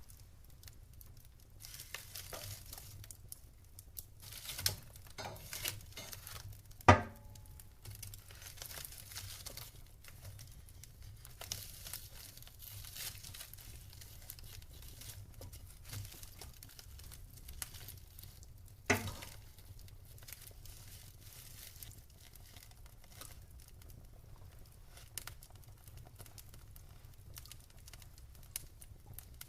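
Wood fire crackling in a fireplace: a steady run of small crackles, with two sharp pops, the loudest about seven seconds in and another about nineteen seconds in.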